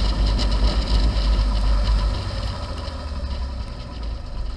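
Piper Cherokee Six's six-cylinder Lycoming engine and propeller running at low taxi power, heard from inside the cabin; the sound eases slightly about halfway through.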